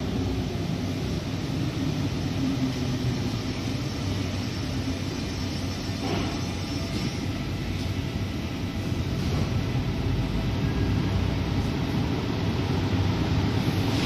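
Rubber-tyred metro train (MPL 75 stock) pulling into the station and slowing to a stop: a steady rumble with a faint high whine over the first half.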